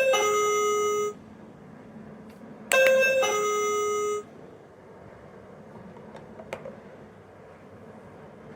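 A sound-making capsule toy plays an electronic ding-dong doorbell chime twice, each time a higher note falling to a lower one. The chimes come about three seconds apart, and the first is already sounding at the start. A faint click follows later.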